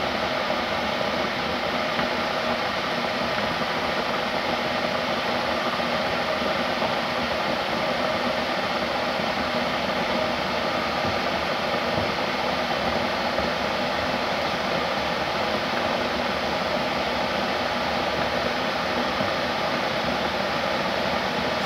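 A fan running with a steady whoosh and a faint hum.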